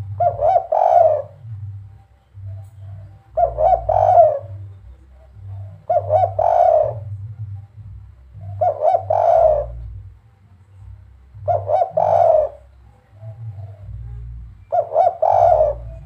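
Spotted dove (derkuku) cooing its 'kuk 3' song six times, about every three seconds; each call is a quick run of short coos ending in a longer note.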